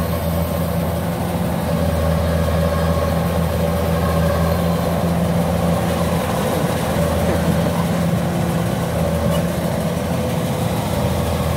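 Kubota DC-93 rice combine harvester's diesel engine and threshing machinery running steadily while it cuts rice, an even, unbroken drone.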